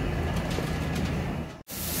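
Low rumble of a New York City subway train with a few faint clicks, which breaks off abruptly about one and a half seconds in and jumps straight to louder rail noise from a train running.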